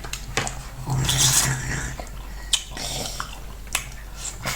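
Wet eating sounds of fufu and light soup: slurping and chewing, with a few sharp clicks.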